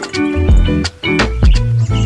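Background music with a steady beat: drums, deep bass and pitched instrument notes.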